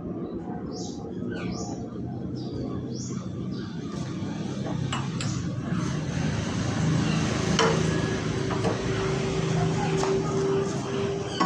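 Metal knocks and clinks from working a manual pipe notcher press, over a steady hum. A steady ringing tone joins about two-thirds of the way in.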